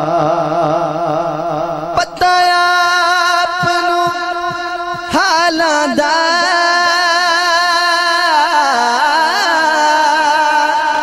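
A man singing a Punjabi naat solo into a microphone, with no instruments. He holds long notes with a wavering vibrato, breaks for breath about two seconds in, then holds another long note before a run of ornamented, wavering phrases.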